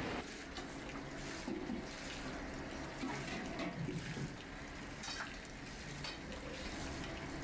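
Liquid sloshing in a large fire-heated vat as aluminium pressure-cooker bodies are moved about in it, with scattered light metal knocks.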